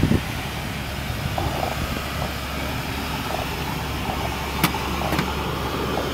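Steady low engine rumble, with two sharp clicks about half a second apart near the end.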